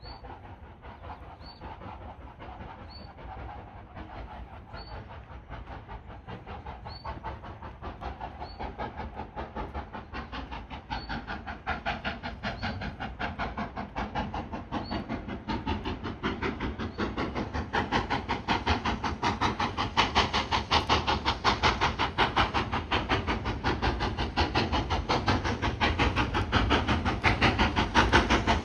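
GWR Castle-class four-cylinder 4-6-0 steam locomotive 5029 Nunny Castle working hard under load, its exhaust beats coming in a quick, even rhythm and growing steadily louder as it approaches.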